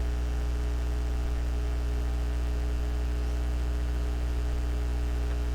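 A steady low hum, even throughout, with no clicks or other events.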